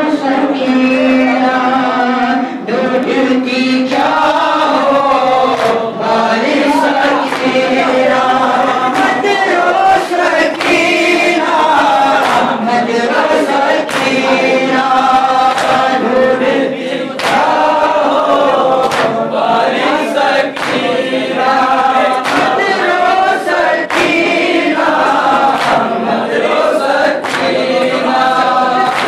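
Group of boys and young men chanting a noha, a Shia lament, in unison. A steady beat of hand slaps on the chest (matam) keeps time under the voices.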